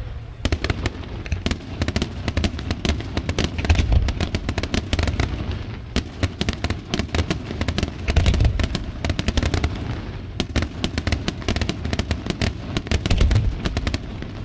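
Aerial fireworks display: shells bursting in rapid, overlapping succession, a dense run of sharp cracks over deep booms, with heavier barrages about four, eight and thirteen seconds in.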